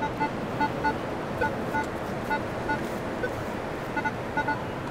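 Beach metal detector giving short, repeated beeps at two pitches as it is swept over a buried target, over steady surf.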